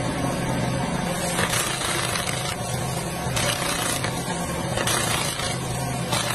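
Dig-Boy skid steer loader's engine running steadily, with bursts of clattering from its stump crusher attachment.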